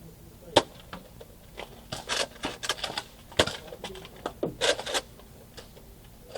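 Nerf blasters clicking and foam darts knocking against surfaces: one sharp knock about half a second in, then quick runs of clicks and knocks around two to three seconds in and again near five seconds.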